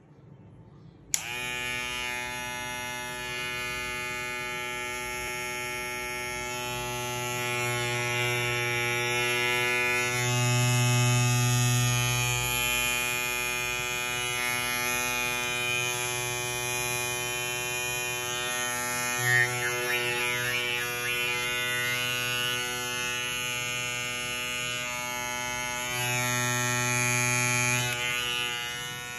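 Electric hair clipper, stamped Wahl on its blade, switched on with a click about a second in and then running steadily with a buzzing hum. It swells a little louder a couple of times.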